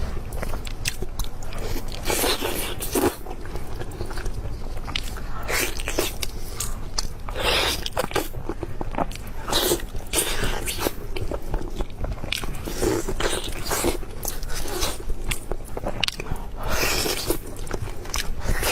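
Close-miked eating: a person biting and chewing food, with irregular sharp bites several times a second in places and wetter chewing between them.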